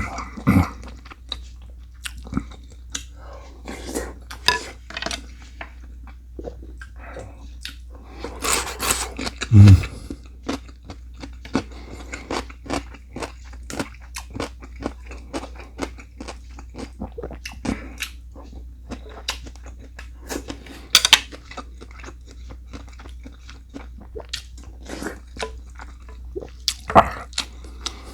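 Close-miked eating: a person chewing, biting and crunching food in a steady run of short clicks and crunches. A louder crunch with a low thump comes about nine seconds in.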